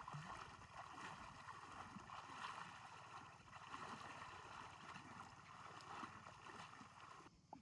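Faint shallow water splashing and flowing, cutting off abruptly near the end.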